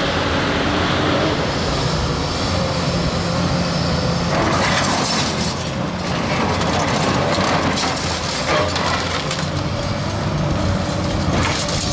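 Komatsu PC290LC hydraulic excavator's diesel engine running steadily under load, while its hydraulic crusher jaws break concrete rubble with several sharp cracks, about four seconds in, at six, near nine seconds and near the end.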